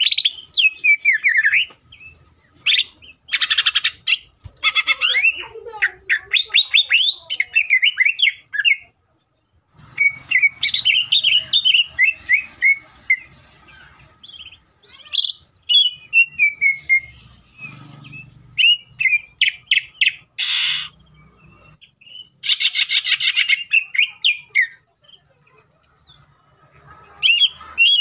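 Greater green leafbird (cucak ijo) singing a loud, fierce song: fast chattering runs of falling whistled notes broken by buzzy rattling trills, in several bouts with short pauses between them.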